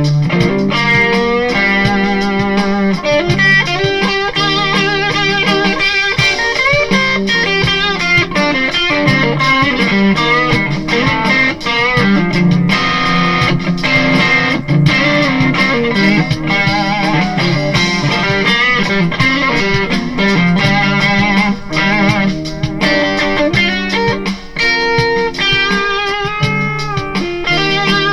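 2022 Kiesel Delos electric guitar played through a PRS HDRX 20 amplifier: a run of many changing notes over sustained lower notes, with wavering vibrato on held notes.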